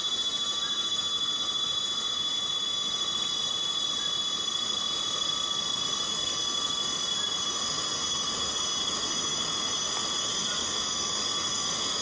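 Borneo rainforest ambience: steady rain hiss under a continuous, high-pitched insect chorus that holds several even tones throughout.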